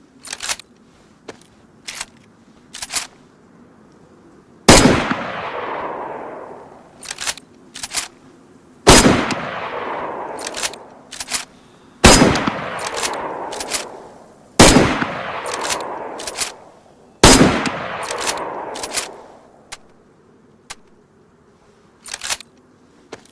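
M70 rifle firing five single shots a few seconds apart, each a sharp report trailing off in a long echo of about two seconds. Short sharp clicks come before and between the shots.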